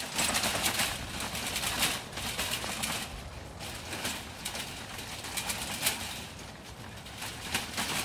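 Wire-sided wheeled feeding cart being pulled over a dirt and gravel road, its wheels crunching and the cart rattling unevenly, with footsteps.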